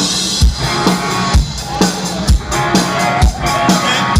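Live rock band playing loud, with a steady kick-drum beat about once a second and a cymbal crash at the start.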